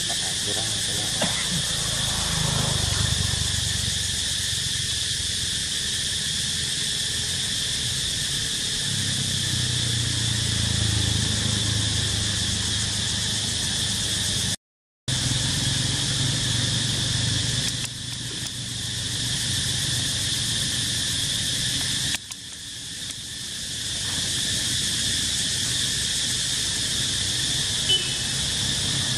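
Steady outdoor ambience: an even, high-pitched insect drone over a low rumble, cutting out completely for a moment about halfway through.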